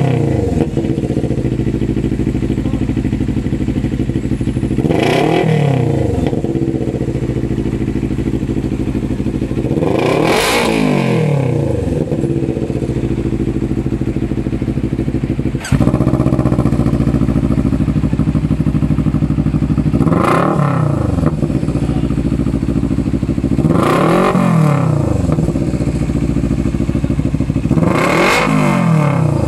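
Two-cylinder motorcycle engine with an aftermarket exhaust muffler idling and being blipped six times, each rev rising and falling within about a second. There is a single sharp click about halfway through.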